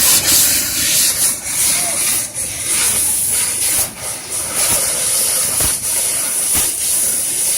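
Fiber laser cutting machine hissing steadily as its assist gas blows through the cutting head, with a few brief dips.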